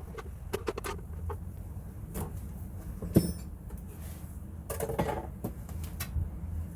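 Scattered small clicks and knocks of bolts and handle parts being handled while a snow pusher is put together, with one sharp click about three seconds in and a short rattle near five seconds, over a steady low hum.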